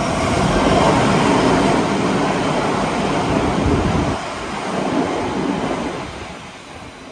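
Kintetsu 5800 series electric train running along the track, a loud rumble of wheels and rails that eases, swells once more and then fades away near the end as the train moves off.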